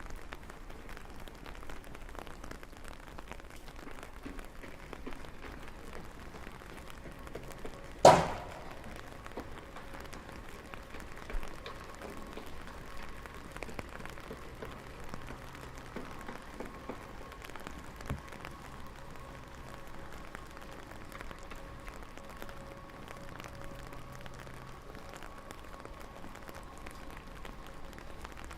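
Rain pattering steadily, with many small drop ticks. A single loud, sharp knock about eight seconds in, two much fainter knocks later, and a faint steady hum through the second half.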